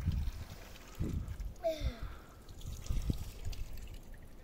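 Spring fountain water trickling from its spout. Low thumps and rumble on the microphone, and a short falling squeak about halfway through.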